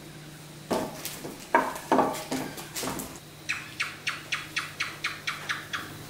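Kitchen clatter: several sharp clinks of dishes or pans that ring briefly, then a quick, even run of about ten light ticks, roughly four a second.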